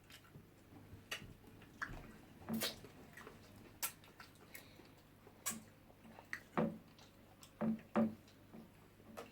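Eating sounds: scattered wet mouth clicks and smacks of people chewing jollof rice and fish, about a dozen short sharp ones spread through the stretch.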